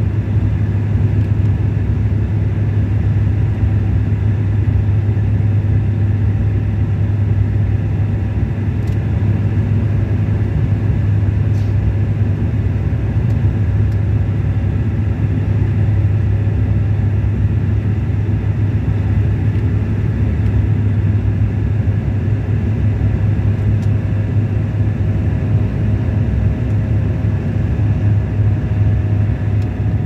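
Steady low drone of a Bombardier Q400 turboprop's propellers and engines heard inside the cabin: a constant hum near 100 Hz with fainter engine tones above it and a rumble underneath.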